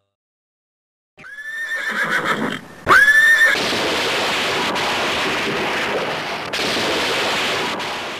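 A horse neighing twice, starting about a second in, followed by a steady rushing noise.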